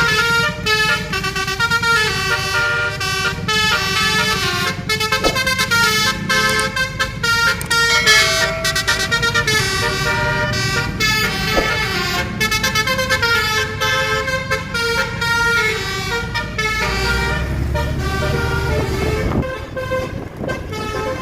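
Tour bus basuri musical horn playing a tune: a quick run of stepped, sustained horn notes over the low rumble of bus engines and traffic.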